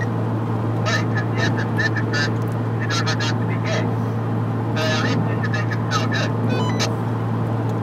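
Steady low drone of a car cruising on the highway, heard from inside the cabin, with a run of short, sharp high-pitched sounds every half-second to a second that cannot be identified.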